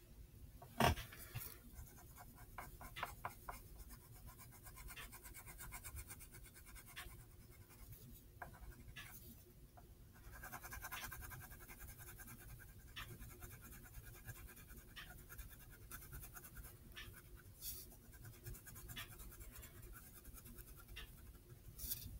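Wax crayon scratching faintly on paper as a face is sketched, with scattered light clicks and a sharper click about a second in.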